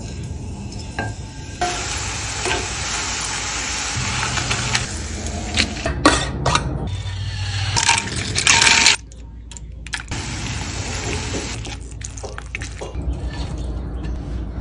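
Tortilla chips and green salsa sizzling in a hot frying pan, with a spatula scraping and clinking against the pan. The sizzle stops abruptly about nine seconds in, then comes back quieter.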